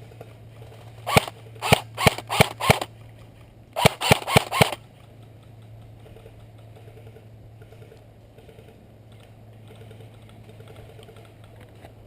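Airsoft gun firing single shots close by: five shots spread over about a second and a half, then after a short pause four more in quicker succession.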